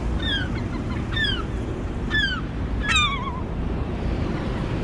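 A gull gives four short, falling calls, about one a second, the fourth the loudest. It is an agitated adult near its chick, calling at the intruder. Wind rumbles on the microphone underneath.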